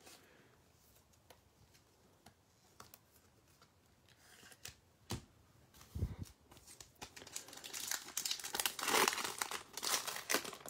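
Foil wrapper of a Panini Prizm basketball retail card pack crinkling and tearing as it is ripped open by hand, loudest near the end. A single thump just past halfway as the pack is taken from the stack.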